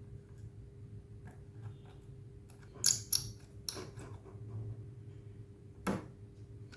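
Small sharp clicks and taps of a screwdriver and the metal drive caddy as its screws are fitted back onto a 2.5-inch SSD, with a cluster of louder clicks about three seconds in and another near the end.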